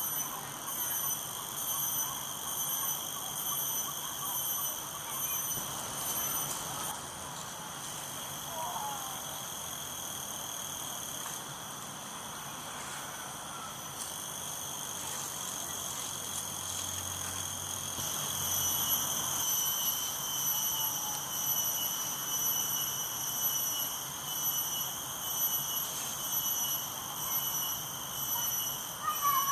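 Insects calling in a steady high-pitched drone that pulses rhythmically and grows louder about eighteen seconds in.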